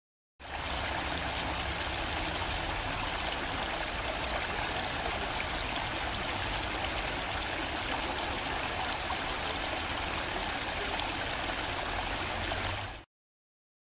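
Small stream of water trickling and splashing steadily down a rocky cascade, with a few brief high chirps about two seconds in.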